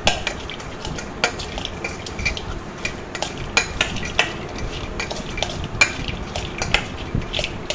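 Spoon stirring a bhelpuri mix of chips and kurkure in a metal kadhai, with irregular clinks and scrapes against the pan over a crisp rustle of the dry snacks.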